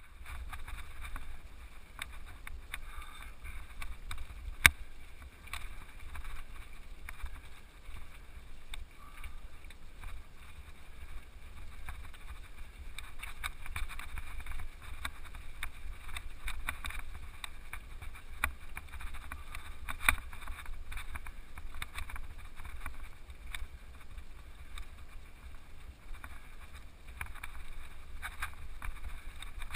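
Mountain bike riding over a loose, rocky gravel track, heard through a bike- or helmet-mounted camera: tyres crunching on stones and the bike rattling, with a steady low wind rumble on the microphone. A sharp knock comes about four and a half seconds in, and another around twenty seconds.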